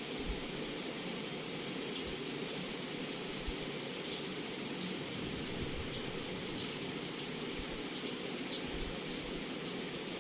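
Heavy rain pouring steadily against a window, a constant hiss with a few sharp drop ticks standing out.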